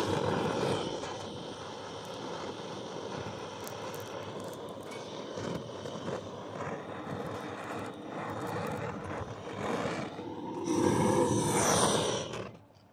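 Handheld butane blowtorch flame hissing steadily, louder for a couple of seconds near the end, then shut off.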